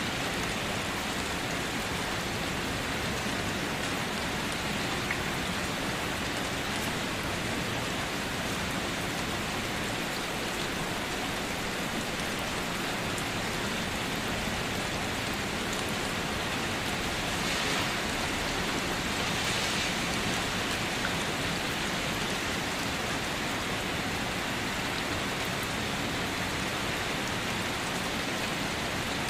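Steady rain falling on surfaces, an even hiss of many drops without pause.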